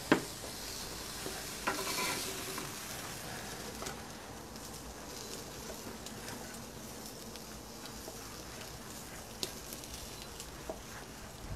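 Wagyu steak sizzling on the hot grate of a gas grill, a steady hiss. A sharp clack right at the start, the loudest sound, and a few fainter clicks come from metal tongs and a knife handling the meat.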